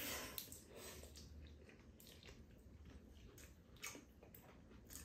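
Two people quietly slurping and chewing spaghetti noodles. A few faint clicks of chopsticks against bowls and a plastic container come through.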